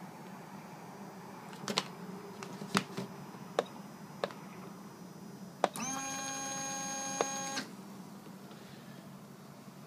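Electric starter of a JetCat P80SE model jet turbine spinning up about six seconds in, running at a steady whine for under two seconds and then cutting off, after a few sharp clicks over a low steady hum. The turbine does not start, a no-start which the owner takes for a failed RPM sensor, probably its cable.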